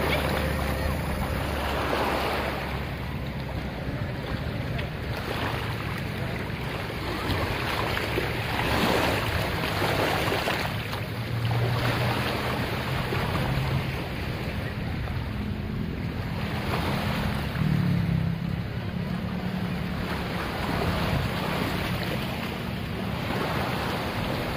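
Small waves lapping and washing over rocks and sand at the water's edge of a calm, shallow bay, each wash swelling and easing every few seconds, with wind buffeting the microphone.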